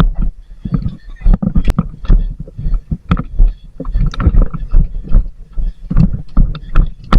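Rapid, irregular thumps and knocks of movement close to the microphone, with a few sharp clicks among them.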